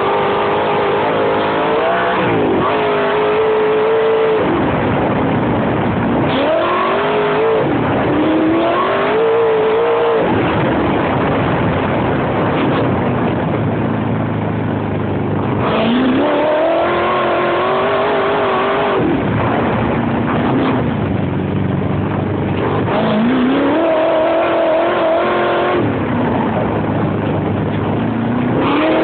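Open buggy's 40-valve V8 engine under hard acceleration, heard on board: the engine note climbs under throttle, holds, then drops away as the driver lifts, about five times over.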